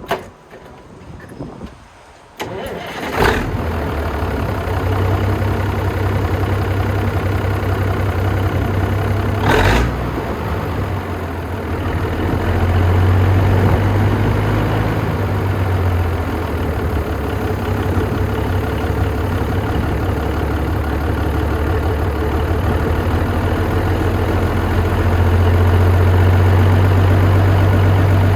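1968 International Transtar 4070A's Cummins diesel engine catching about two and a half seconds in, then running at a steady idle. There is a short loud blip around ten seconds, and the engine runs a little louder from about twelve seconds and again near the end.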